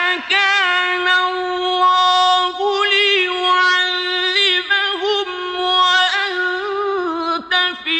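A man's voice chanting the Quran in Arabic in a slow, melodic style, holding long, high, ornamented notes with wavering turns and a few short breaths.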